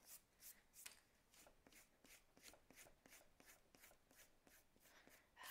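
Faint eraser rubbing back and forth on paper in quick, even strokes, about three a second, taking the pencil lines off an inked drawing.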